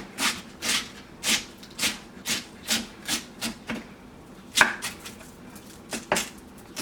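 Cabbage and carrots being sliced thin, a run of short slicing strokes about two to three a second, with a couple of brief pauses.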